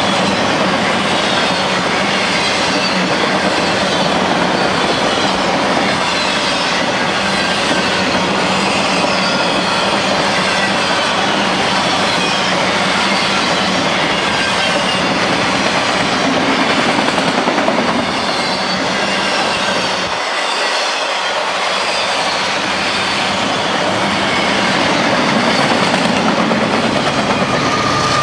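Freight train of autorack cars rolling past at speed: a steady rumble and clatter of steel wheels on the rails, with faint drifting wheel squeals throughout. Near the end the sound swells as a Union Pacific locomotive at the tail of the train comes by.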